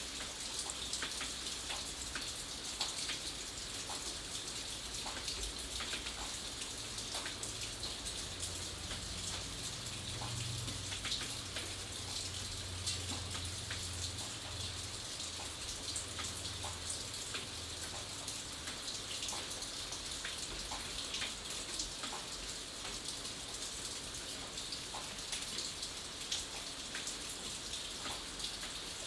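Steady rain: an even hiss with many individual drops clicking on a surface. A low rumble rises and fades in the middle.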